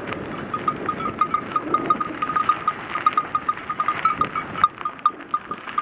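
Sheep bells clinking irregularly at one pitch, several dings a second, over the rumble of bicycle tyres on a gravel road.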